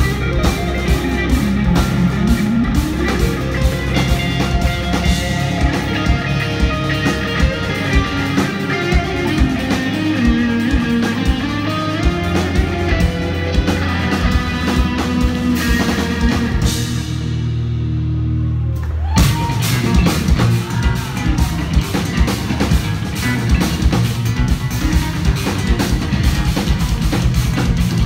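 Live instrumental progressive metal from two eight-string electric guitars and a drum kit playing a dense, busy passage. About two-thirds of the way through the drums stop for a few seconds while a low chord rings on its own, then the full band comes back in together.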